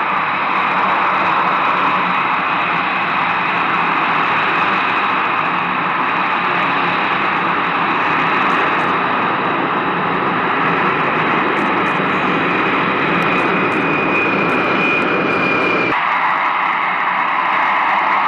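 Four turbofan engines of a C-17 Globemaster III flying overhead: a steady, loud jet rush with a high whine that slides slightly lower. Near the end the sound changes abruptly to a thinner jet noise with less low rumble.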